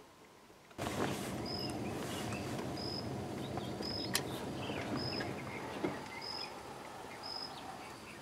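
After a brief silence, a steady low background noise starts, with a cricket chirping in short high chirps about once a second. A single sharp click comes a little after four seconds in.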